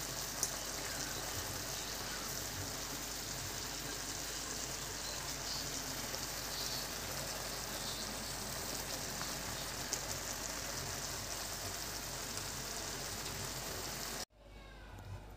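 Mixed vegetables simmering in a soy-based sauce in a metal wok, a steady sizzling and bubbling that cuts off suddenly near the end.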